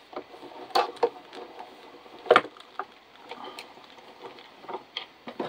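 Scattered light knocks and clicks as the Gina K Intri-Cut embossing machine and its platform, embossing folder and cutting mat are worked and handled. The loudest knock comes a little past two seconds in.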